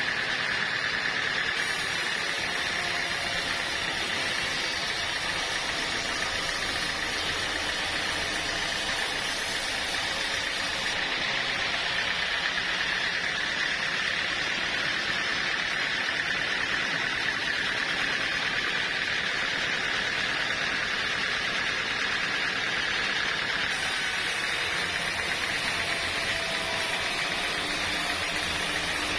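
Sawmill saw running steadily while cutting teak, a constant high whine over a hiss.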